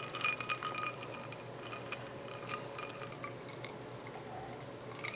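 Carbonated soda fizzing over ice in a glass: a dense patter of tiny crackles that thins out after about a second, with an occasional small clink of glass or ice.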